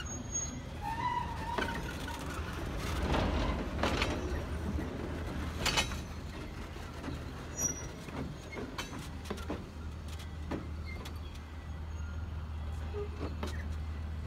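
Riveted steel passenger coaches rolling past on the rails: a low steady rumble with irregular clicks and clanks from the wheels and running gear.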